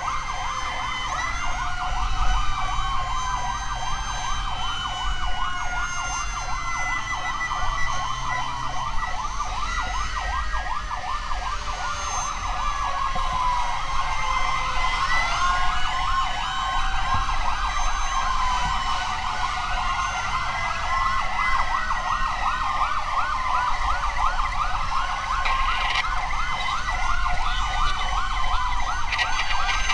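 Several emergency-vehicle sirens sounding at once: a fast yelping siren overlaid with slower wailing sirens that rise and fall every few seconds, over a low rumble.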